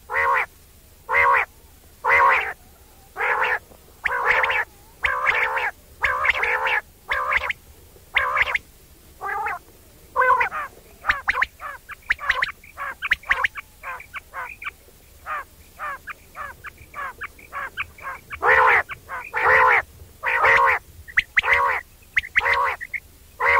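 Quail calling over and over, about one call a second at first. In the middle comes a run of quicker, shorter notes, and the longer, slower calls return near the end.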